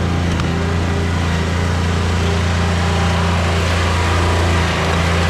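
John Deere 2320 compact tractor's three-cylinder diesel engine running steadily with an even hum.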